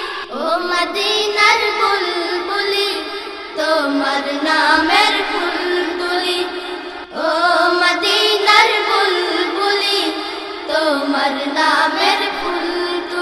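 A high voice singing a Bengali gazal in long, winding phrases of held and gliding notes, with short breaks between phrases.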